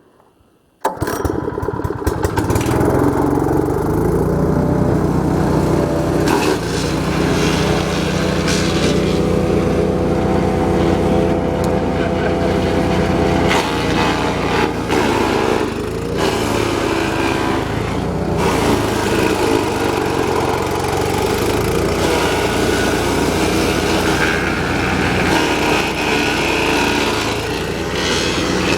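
GeoTech PCS70 BS wood shredder's small petrol engine running loud and steady, cutting in abruptly about a second in, with short cracking sounds here and there as branches are fed through the chipper.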